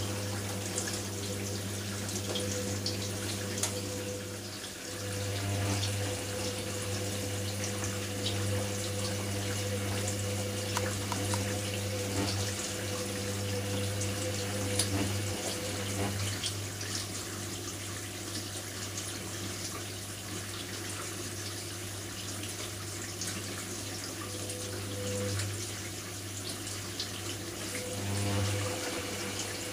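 Hoover Nextra front-loading washing machine tumbling a wash: the drum motor hums steadily while water and wet net curtains slosh and splash inside the drum. This is the load-sensing first phase of the wash, and the motor note shifts a few times, last near the end as the faster tumbles of the second phase begin.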